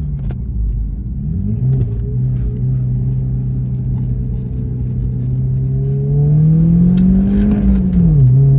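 BMW E87 1 Series engine running under way with the airbox lid removed, its intake noise louder for it. The engine note dips and climbs again about a second in, holds steady, then rises in pitch from about six seconds and falls sharply near the end.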